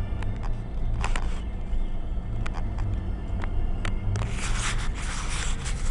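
Off-road vehicle driving slowly over a rough trail: a low engine rumble with scattered clicks and knocks from the body and suspension. About four seconds in, a louder scraping hiss starts.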